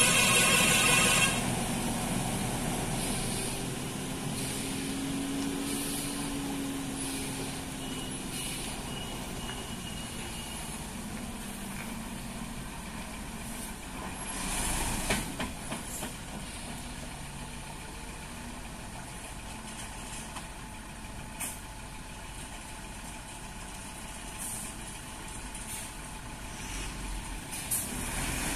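Heavily loaded multi-axle diesel lorry crawling around a tight hairpin bend, its engine running low and steady under load. A horn sounds for about a second at the start, and short air-brake hisses come a few times later on.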